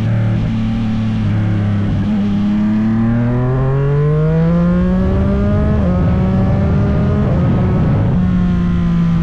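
Motorcycle engine accelerating hard, its pitch climbing steadily for a few seconds, dipping briefly about six seconds in as it shifts up, then pulling on and dropping slightly once more near the end.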